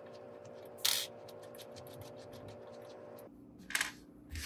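Small metal clicks as set screws are worked out of the disk skimmer's collar and handled: one sharp click about a second in and another near the end, followed by a light thump. Under them is a faint steady hum that stops about three seconds in.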